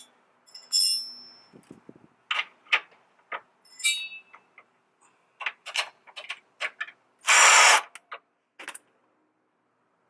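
Hand tools and steel suspension parts clicking and clanking in a string of separate knocks while the lower control arm is unbolted and worked out of the car, with one louder half-second metallic scrape or rattle about seven seconds in.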